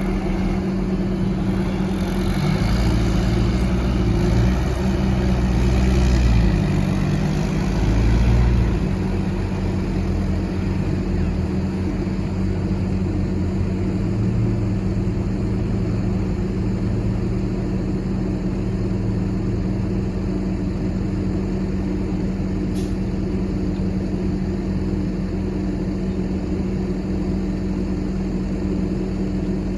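Heavy diesel engine of construction machinery running steadily, working harder and louder for several seconds near the start before settling to an even hum.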